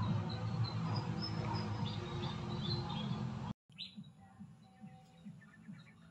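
Outdoor ambience with small birds chirping. The sound cuts out abruptly about three and a half seconds in and comes back much quieter, still with faint chirps.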